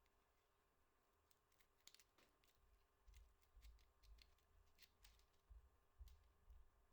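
Near silence: faint room tone with a scattering of small, faint clicks.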